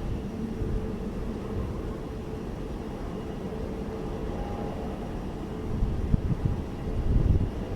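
Jet airliner engines rumbling steadily with a faint whine, and louder low gusts of rumble about six to seven and a half seconds in.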